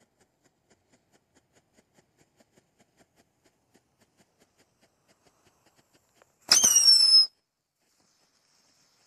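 Consumer firework cake burning: faint scattered crackles, then one loud firework whistle about six and a half seconds in that lasts under a second, its pitch falling slightly. A faint hiss follows as a green fountain sprays sparks.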